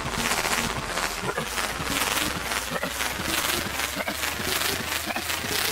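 MagnaGuard droids' electrostaffs spinning as the droids advance: a quick, even rhythm of crackling ticks with a whoosh about every second or so.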